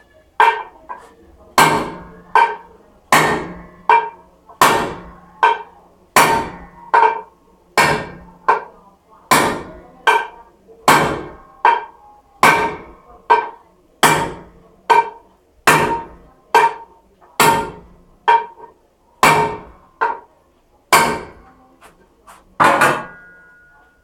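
Hammer striking an aluminium wheel rim again and again, about thirty blows at a little over one a second, each with a short metallic ring.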